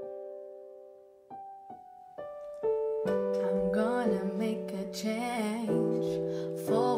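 Intro music: piano notes struck one after another and left to ring out, then a voice starts singing over fuller keyboard chords about three seconds in.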